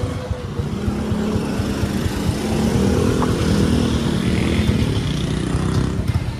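Motorcycle engine running under way, with a swell in engine sound around the middle.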